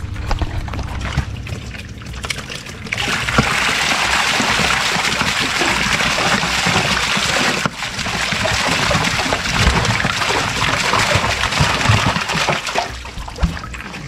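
Water pouring and splashing as a foam box of live catfish is tipped out into a concrete tank. A steady rush starts about three seconds in, breaks off briefly about halfway, and eases near the end.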